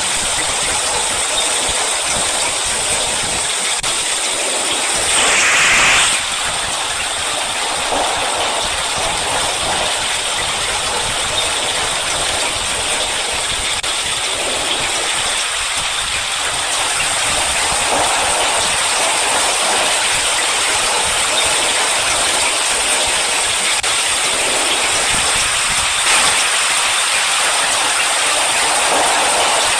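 Steady rain falling, an even hiss, with a brief louder rush about five seconds in.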